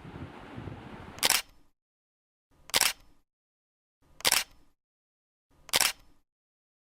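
Four short, sharp clicks like a camera shutter, evenly spaced about a second and a half apart, with dead silence between them. A faint steady hiss underlies the first click and then stops.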